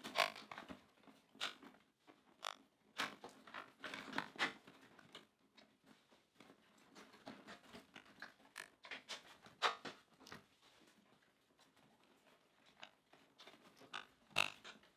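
Plastic front-cover fairing of a Honda Africa Twin being handled and pressed into place: irregular light clicks, taps and rustles of plastic against plastic, with a sharper click near the end.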